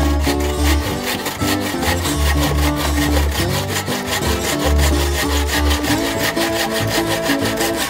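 Wooden bucksaw cutting through a log in quick, even rasping strokes, over background music.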